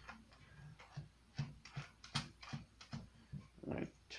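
Irregular light clicks and taps of small tools and parts being handled on a workbench, about a dozen in all, with a brief rasping sound just before the end.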